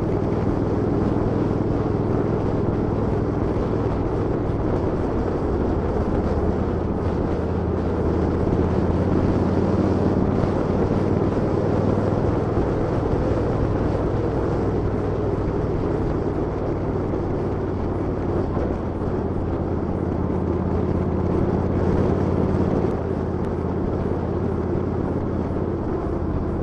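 A vehicle engine running steadily with a low drone, its note shifting slightly about twenty-three seconds in.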